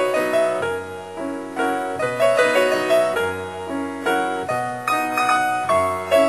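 Background music on a keyboard instrument, playing a melody over chords. Each note is struck and then fades.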